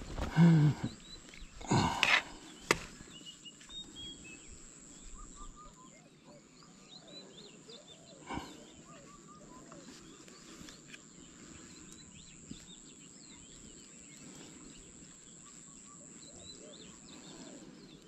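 Small birds chirping busily in the background over a thin steady high tone. Close handling noises in the first three seconds, ending in a sharp click.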